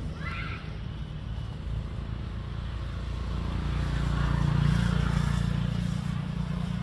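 A motor vehicle passing on the nearby road: a low engine hum that grows louder to a peak about two-thirds of the way through, then eases off. A brief high chirp sounds right at the start.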